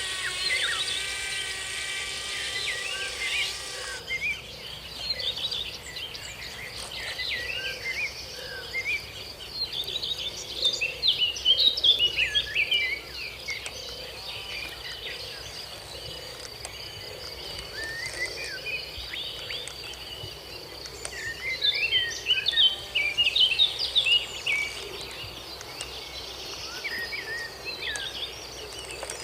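A small electric motor whining at a steady pitch, cut off suddenly about four seconds in. After that, many birds chirping in short scattered calls, with a steady high insect buzz from about ten seconds in.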